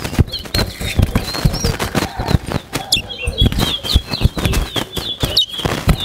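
Caged towa-towa (chestnut-bellied seed finches) singing in quick, twittering high phrases, sparse at first and busier in the second half, over repeated sharp clicks and wing flutters from the birds moving about their cages.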